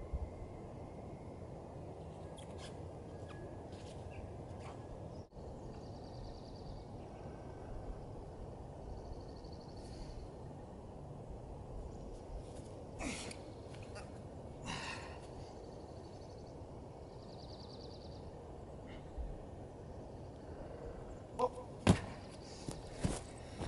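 Outdoor ambience: a steady low rumble of wind and distant noise, with a few faint bird calls. Near the end come several sharp knocks and thumps, one much louder than the others.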